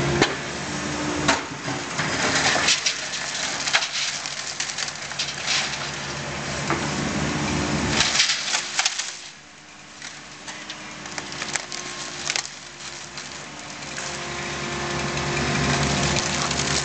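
Hydraulic excavator's engine running while its bucket crushes and drags demolition debris, with repeated cracking and crunching of splintering wood and scraping sheet material. The noise eases off a little past halfway, then builds back up.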